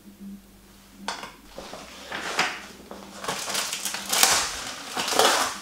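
Hands working with food and utensils at a kitchen counter: a run of irregular rustling and scraping noises, loudest about four and five seconds in, over a faint steady hum.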